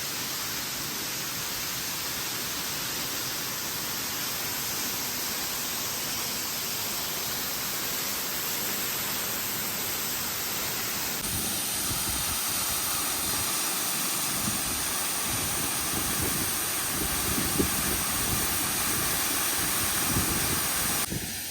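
Waterfall: a steady rush of falling water, its tone shifting slightly about eleven seconds in.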